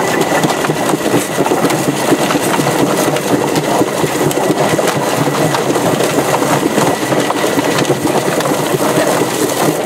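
Homemade barrel-style chicken plucker running: its motor-driven spinning plate tumbles scalded roosters against the rubber plucking fingers, a steady, dense clatter of knocks, while a garden hose sprays water into the drum.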